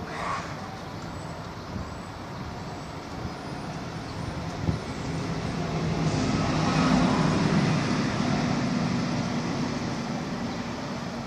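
City road traffic: a steady wash of passing vehicles, with one heavier vehicle's engine growing louder and passing, loudest from about six to nine seconds in.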